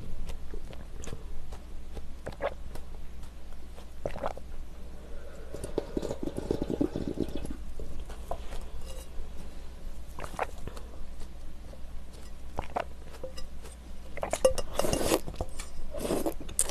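Close-miked eating sounds of a person finishing a bowl of rice cake soup: chewing and swallowing, with a spoon clinking and scraping against the bowl, loudest near the end.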